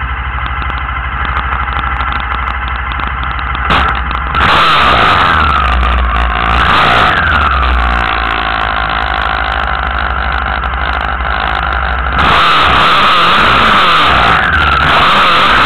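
Off-road racing buggy engines on the starting grid, first running steadily, then revved up and down, and from about twelve seconds in held at high revs as the start approaches.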